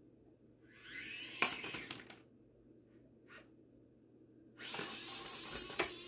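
Axial SCX24 micro crawler's small electric motor and gears whining in two bursts of about a second and a half, rising in pitch as the first one starts, with a sharp click in each burst.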